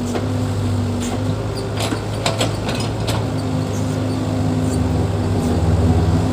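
Heavy earthmoving machine's diesel engine running steadily under load, with several sharp metallic clanks about two to three seconds in.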